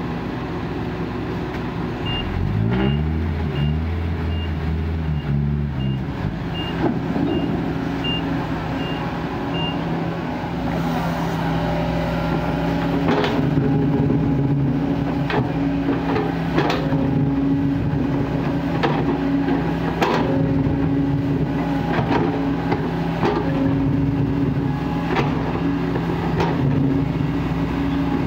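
Heavy diesel machinery working: a reversing alarm beeps about a dozen times, roughly one and a half beeps a second, while a diesel engine revs up. After that the engine runs steadily, with a series of sharp knocks about once a second.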